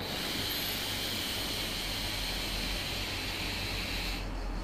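A long drag on an e-cigarette: air hissing through the atomizer as the rebuilt 0.51-ohm Joyetech coil head fires at 40 watts, steady for about four seconds and then cutting off.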